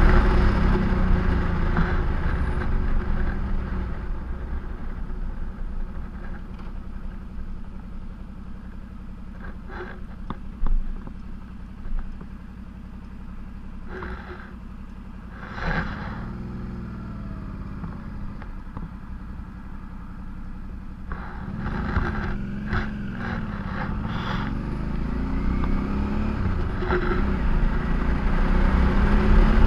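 Road ride heard through a moving camera: wind rumble on the microphone eases as the vehicle slows to a crawl midway, then builds again as it picks up speed. Engines rise and fall in pitch around the middle and in the second half, with a few sharp clicks and knocks.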